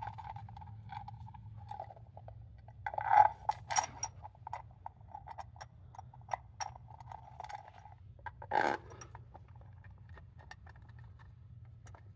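Small clinks, scrapes and rubbing as a PVC end-cap seal press and its steel bolts are handled and threaded against an aluminium engine block, with two louder clusters of knocks, about three seconds in and near nine seconds.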